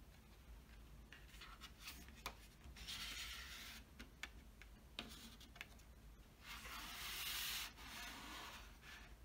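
Hand rubbing and sliding over a cardboard DVD fold-out case, faint: a few scraping swishes with light taps and clicks between them, the longest and loudest swish about two-thirds of the way through.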